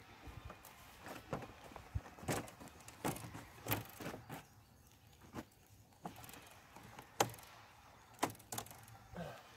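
Metal-framed folding camp table being unfolded: a string of irregular clicks and clacks from the frame and legs, the sharpest about seven seconds in.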